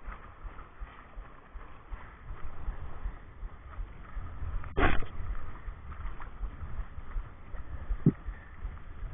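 Kayak on moving water: a steady low rumble of water with wind buffeting the microphone. A single sharp, loud hit comes about five seconds in, and a short low thud near the end.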